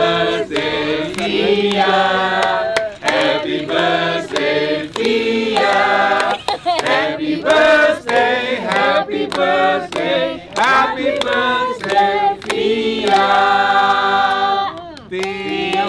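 A group of voices singing a birthday song together, with hands clapping along in time.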